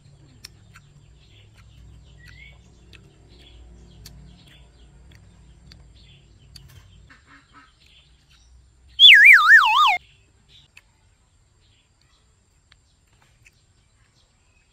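A loud warbling whistle tone, like a comedy sound effect, slides down in pitch over about a second, nine seconds in, and cuts off abruptly. Before it, faint bird chirps sound over a low rumble.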